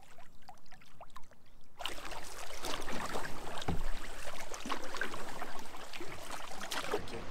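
Canoe paddling: a wooden paddle dipping and pulling through lake water, with splashing and water rushing along the hull. It starts suddenly about two seconds in, after a quiet opening with a few faint water sounds.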